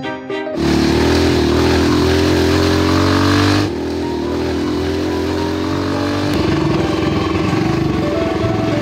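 Small single-cylinder go-kart engine revving, its pitch climbing steadily; about three and a half seconds in the sound drops to a lower, steadier running engine.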